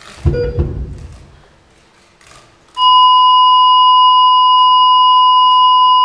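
Performance backing track over the venue speakers: two low hits near the start, then one long, loud, steady electronic beep that starts about three seconds in and holds without a break.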